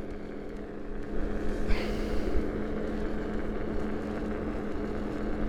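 Electric scooter riding along: the steady whine of its 1000-watt electric motor over tyre and wind rumble, with a brief louder rattle about two seconds in.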